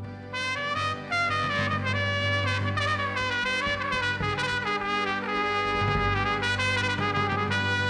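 Film score music led by trumpet over a steady bass.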